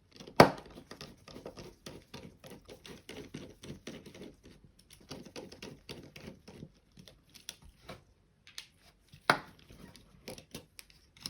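Small screws being backed out of a computer mouse's plastic chassis with a screwdriver, heard as a long run of quick, light clicks and scrapes. A sharp knock comes about half a second in and another near the end.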